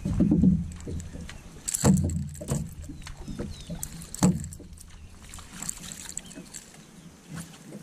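Water slapping and lapping against the hull of a small boat, with knocks at the start, about two seconds in and about four seconds in, over a low rumble.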